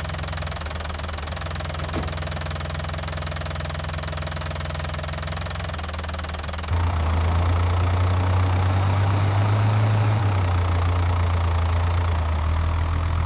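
A steady, low engine-like rumble that grows louder about seven seconds in and then cuts off suddenly.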